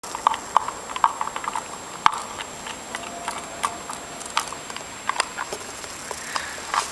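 Dog gnawing on a chew bone: irregular sharp clicks and crunches of teeth on the bone, sometimes in quick clusters.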